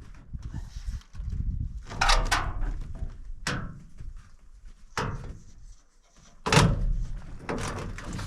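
Steel roofing panels being handled and set down: a run of separate knocks and thumps, about five in all, the loudest about six and a half seconds in.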